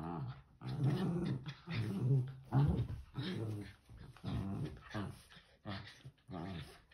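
Small dogs play-wrestling and growling: a string of short growls, about one a second.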